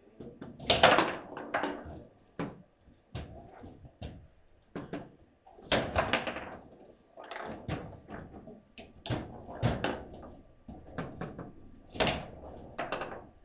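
Table football in play: irregular sharp knocks and thuds as the ball is struck by the figures and bangs into the table walls, with the rods clacking. The loudest hits come about a second in, around six seconds and near the end.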